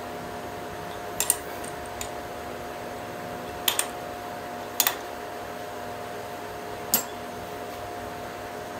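A few sharp metal clicks and clinks, some in quick pairs, as a lathe's four-way tool post is worked by hand with its clamping handle and a wrench, over a steady hum.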